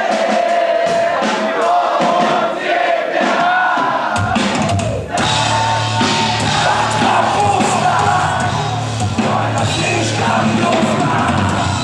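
Live heavy rock concert with loud sung and shouted vocals and crowd noise. About four seconds in, the bass and drums come in and the full band plays on.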